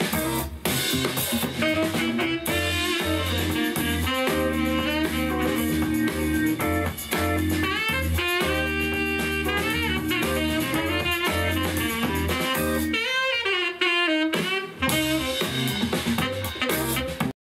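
Jazz-style music with saxophone, drums and bass played back through a portable Bluetooth speaker, stopping suddenly at the end.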